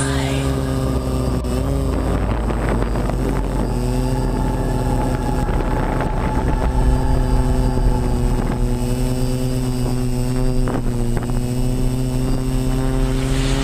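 Quadcopter's electric motors and propellers buzzing steadily in flight, a multi-tone whine that holds its pitch with a few brief dips as the throttle changes.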